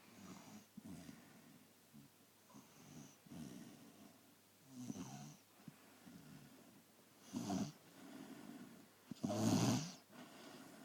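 A small sleeping pet snoring: a run of rasping snore breaths about a second apart, several of them loud near the end.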